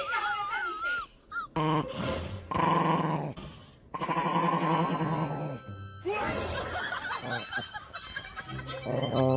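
A dog vocalizing in several long, drawn-out sounds, with background music.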